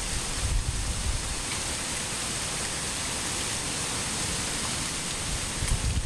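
Wind blowing: a steady rushing hiss, with gusts rumbling on the microphone near the start and again near the end.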